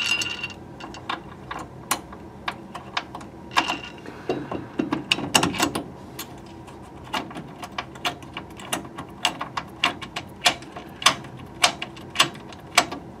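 Irregular small metallic clicks and taps of an LED light's mounting bolt and bracket being worked by hand against a steel bumper bracket, fitting the nut to the slot.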